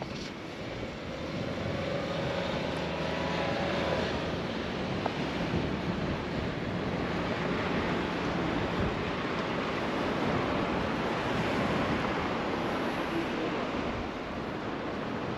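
Road traffic: cars and minivans driving past close by, a steady rush of tyres and engines that grows louder about a second in.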